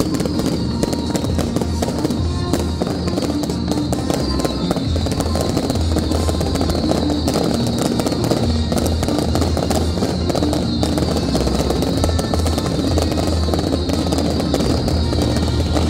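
Aerial fireworks bursting overhead in a dense, continuous crackle of many small reports, with music playing alongside.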